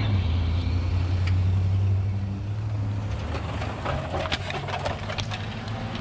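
A vehicle engine running with a steady low hum, strongest for the first three seconds and then fading. Over the second half comes a run of sharp clicks and scuffs.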